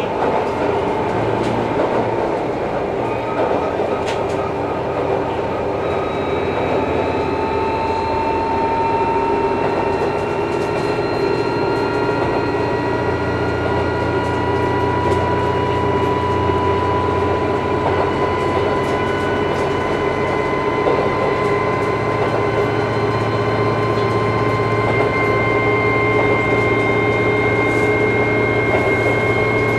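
Interior running sound of a KiHa 11-100 diesel railcar: a steady diesel drone and rail noise, with a whine that slowly rises in pitch as the railcar gathers speed. Wheels click over rail joints now and then.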